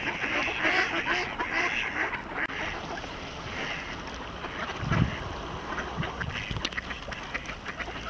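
A flock of mallards quacking and calling over one another, with a single low thump about five seconds in.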